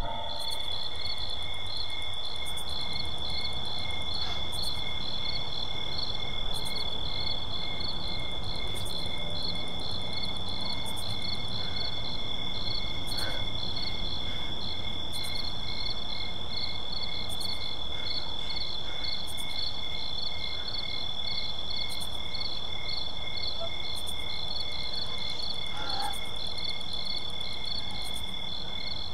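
Night-time insect chorus: crickets chirping in a steady high trill with rapid pulsing chirps, over a low background rumble.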